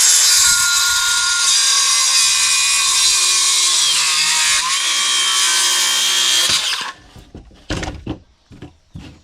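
Handheld circular saw running and cutting through a wooden board, stopping about two-thirds of the way in, followed by a few knocks.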